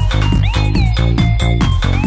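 Electronic dance music with a steady beat.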